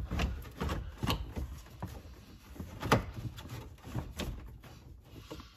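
Irregular plastic clicks, knocks and scrapes from an aftermarket double-DIN radio and its bundled wiring being pushed into the dashboard opening, with one sharper knock about three seconds in.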